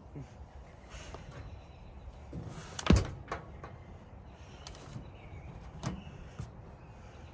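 A few sharp knocks and clicks, the loudest about three seconds in, over a low steady rumble.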